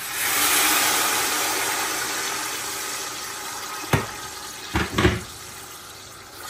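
Hot water from a kettle poured into a pot of frying onions and tomatoes: a loud rush and hiss that starts suddenly and slowly dies away. Three short knocks come near the end.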